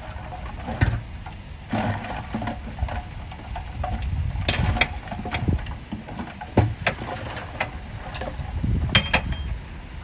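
Dump truck's engine running as its hydraulic hoist tips the loaded bed up and soil begins sliding out over the tailgate. A steady low rumble with repeated sharp knocks and clanks through it, loudest about halfway and again near the end.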